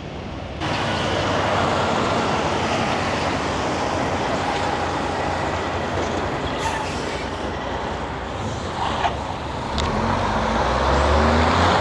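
Semi truck under way, heard from the cab: a steady engine and road rumble, with a deeper engine drone building near the end as it pulls.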